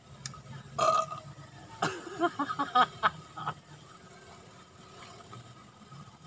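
A man's voice: a short sound about a second in, then a run of short broken vocal sounds for about two seconds, over a low steady background rumble.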